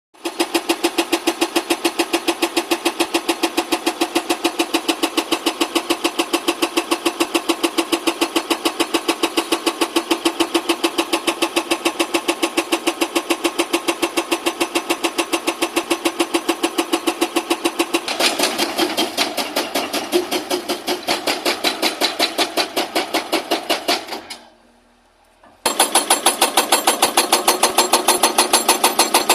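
Excavator-mounted hydraulic rock breaker hammering in a rapid, even rhythm of blows. About two-thirds through the blows turn harsher; near the end the hammering stops for about a second, then starts again.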